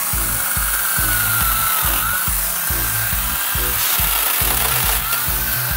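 Electric chainsaw attachment on a cordless angle grinder running and cutting into thorny bamboo (Bambusa blumeana) at the base of the clump: a steady, dense rasp with a motor whine that dips and recovers a couple of times. Background music with a steady beat plays underneath.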